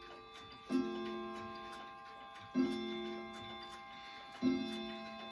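Howard Miller regulator wall clock striking the hour for twelve: three identical ringing strokes about two seconds apart, each dying away slowly. The pendulum's ticking carries on between them.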